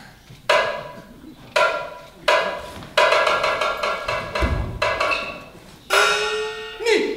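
Kunqu opera percussion ensemble playing: single strikes about a second apart, then a quick run of strokes about three seconds in, and one more strike near the end, each ringing and fading away.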